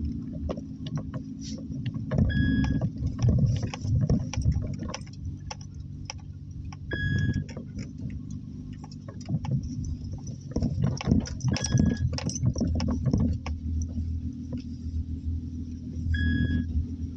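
Car's cabin sound as it drives slowly onto a dirt driveway: low tyre and engine rumble with scattered crackles of gravel under the tyres. A short high beep sounds about every four to five seconds.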